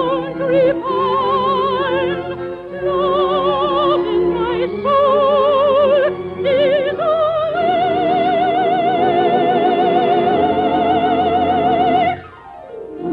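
Operatic voice singing with a wide vibrato over an orchestra, closing a love song on a long held high note that stops about twelve seconds in.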